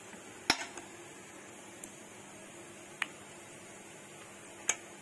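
A metal spoon clinks against a plate three times, the first the loudest, while thick haleem is spooned onto it.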